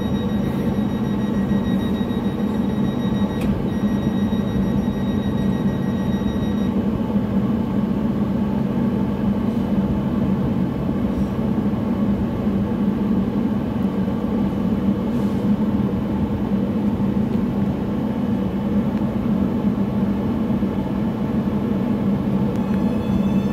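Trenitalia Hitachi Rock double-deck electric train standing at the platform, its onboard equipment giving a loud steady hum, with a high-pitched whine that stops about a quarter of the way in. Near the end a rising whine begins as the train starts to pull away.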